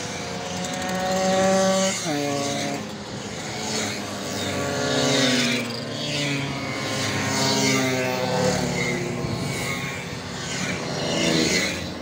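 Simson two-stroke mopeds and small motorcycles riding past in a continuous line, their engines rising as each one approaches and falling away as it goes by. One engine drops sharply in pitch about two seconds in as it passes, and the loudest passes come every few seconds.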